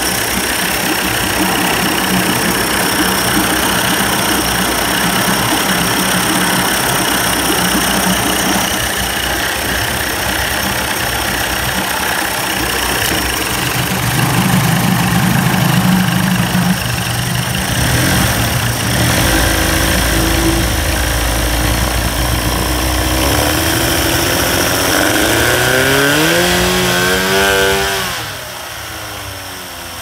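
1990s 30 hp Evinrude two-stroke outboard running during a cold-start warm-up, steady with no lean sneeze or popping. Near the end its pitch rises and then falls, and it settles to a quieter, slower run.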